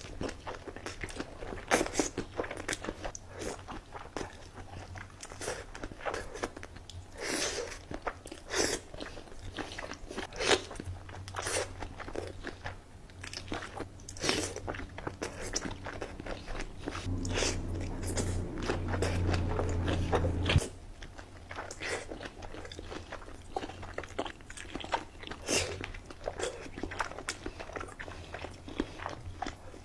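Close-miked eating of a seafood boil: repeated bites and crunches with chewing, in quick irregular succession. In the second half a low hum runs for a few seconds and then cuts off suddenly.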